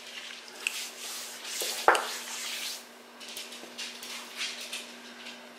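Light handling noises at a table: soft rustling and one sharp click or clink about two seconds in, then a few small taps, over a steady low hum.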